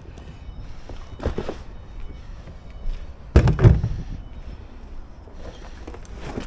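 A thunk about a second in, then a louder double thunk about three and a half seconds in, over steady outdoor background noise.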